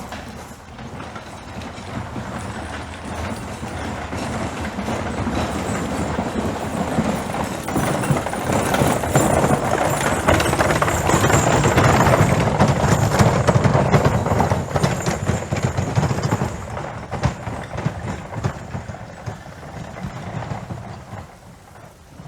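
Clattering hoofbeats of horses approaching, passing close by around the middle, and fading away.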